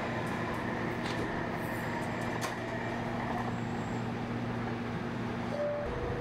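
Electric light rail train running along the track: a steady noise with a low hum. A short higher steady tone comes in near the end.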